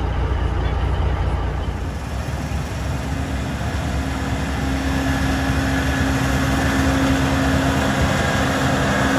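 A heavy diesel vehicle engine running steadily. A low rumble gives way about two seconds in to a steadier hum with a faint higher whine, growing slightly louder.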